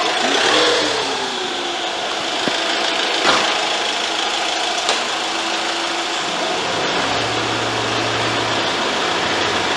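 Motorhome engine idling steadily as the vehicle creeps forward at walking pace, with a few light clicks. A low hum joins it for about two seconds near the end.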